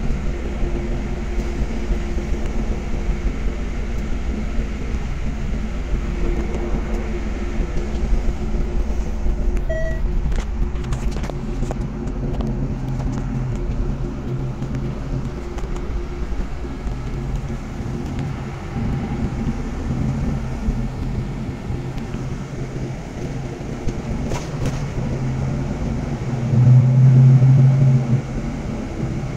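City bus engine and road noise heard from inside the passenger cabin while riding, a steady low rumble. Near the end a louder low hum rises for about a second and a half, then drops back.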